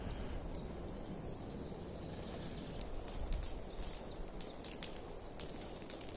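Wood fire crackling, with scattered sharp pops over a low steady rumble; the pops come thickest a few seconds in.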